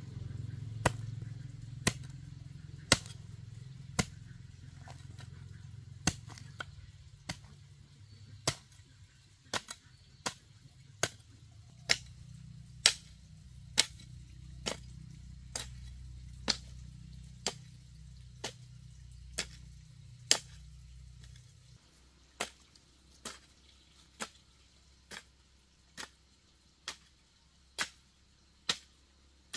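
Hand hoe chopping into dry, clumpy soil, breaking up clods with a sharp strike about once a second. A low background rumble stops about three-quarters of the way through.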